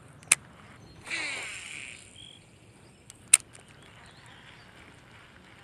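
Casting with a baitcasting reel: a sharp click just after the start, then the spool whirring as line pays out and slowing over about a second, and another sharp click about a second and a half later.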